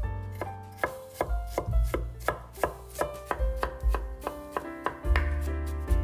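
Knife chopping food on a cutting board in quick, uneven strokes, about two or three a second, over background music with a low bass line and sustained notes.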